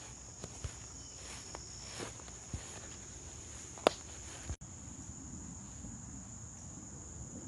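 Steady high-pitched insect chorus, with scattered footsteps and knocks as someone walks through long grass. A sharp click about four seconds in is the loudest sound, and the audio drops out for an instant just after it.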